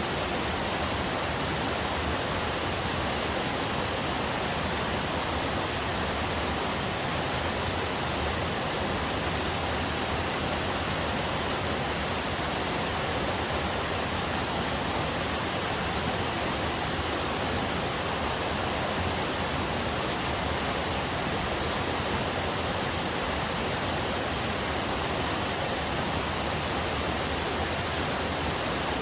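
Small waterfall on a forest river, water pouring and rushing in a steady, unbroken roar.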